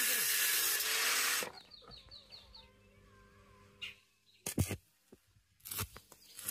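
A steady harsh workshop tool noise from work on the axle shaft stops abruptly about a second and a half in. After a quiet stretch come a few short sharp knocks near the end.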